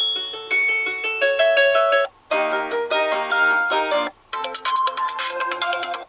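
Realme C21Y phone ringtone melodies playing: three short melodic phrases of about two seconds each, separated by brief breaks.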